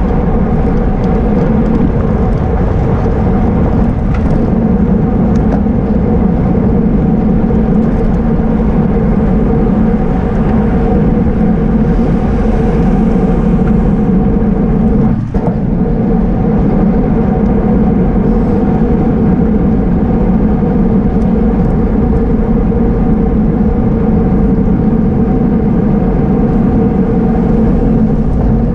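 Steady rush of wind and road noise on a camera riding on a racing bicycle at speed, with a constant hum under it. The level dips briefly about halfway through.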